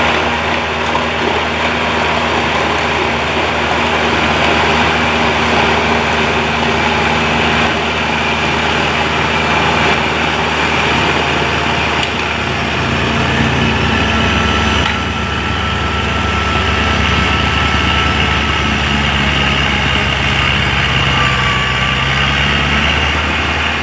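Kubota tractor engine running steadily, driving a WoodMaxx snowblower as it clears heavy wet snow.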